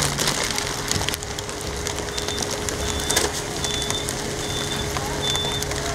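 Rear-loading garbage truck's compactor running, its packing blade sweeping and crushing packaged snacks in the hopper with scattered crackling. A steady engine hum runs under it, and from about two seconds in a high electronic beeper sounds about once every 0.8 seconds.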